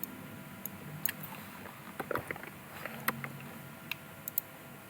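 A few faint, separate clicks from working a computer's mouse and keyboard, over a steady low room hum.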